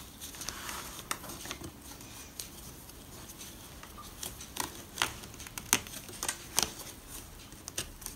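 Hands working a grass box's mesh fabric panel onto the metal frame bar and into the grooves of its plastic housing: rustling fabric with scattered light clicks and taps, the sharpest a little past halfway through.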